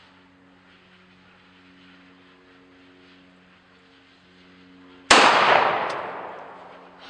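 A single shot from an HK45 .45 ACP pistol about five seconds in. It is a sharp crack followed by a long echo that dies away over a second or so.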